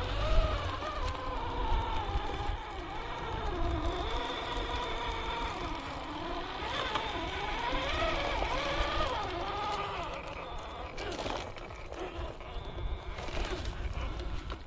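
Electric drive motor and gearbox of an RGT EX86190 radio-controlled crawler whining, the pitch rising and falling with the throttle. Near the end the whine fades and scattered clicks and crunches take over, the tyres and chassis working over rough ground.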